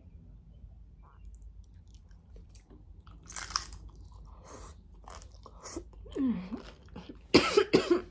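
A woman chewing crunchy tostada, then choking and coughing hard several times near the end, with pepper gone down the wrong pipe.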